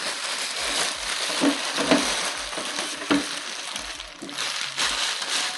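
Packaging rustling and crinkling as a boxed product is opened by hand, a dense crackle with a few light knocks.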